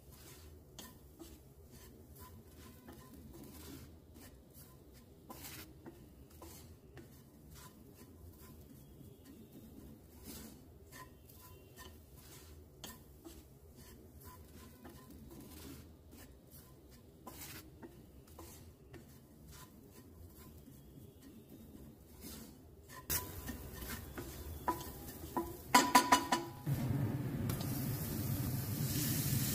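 Wooden spatula stirring and scraping onion-spice masala in a stainless steel pan, faint scratchy ticks. About 23 s in it gets louder, a few sharp ringing knocks come near 26 s as boiled potatoes go into the pan, and then a steady sizzle of frying.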